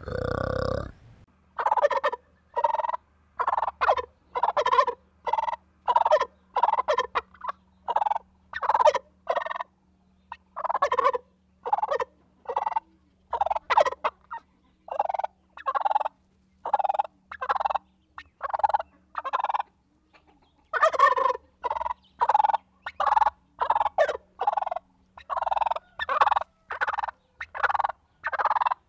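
Male domestic turkey gobbling: short calls in quick succession, about two a second, with a couple of brief breaks.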